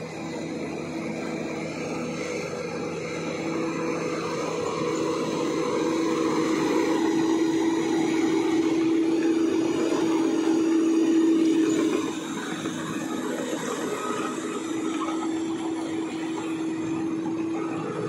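Bulldozer's diesel engine running with a steady hum. It grows louder over the first ten seconds or so and drops back suddenly about twelve seconds in.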